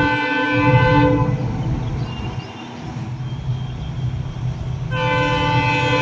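Diesel locomotive horn of an Indian Railways WDP4-series engine sounding a multi-tone blast that cuts off about a second in, then a second blast about five seconds in, over the steady low rumble of the diesel engine.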